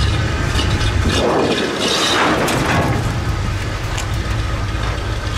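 Dump truck engine running steadily as the truck eases forward with its box raised. About a second in, a loud rushing, scraping noise lasts about two seconds as the rest of the load slides out of the tipped box.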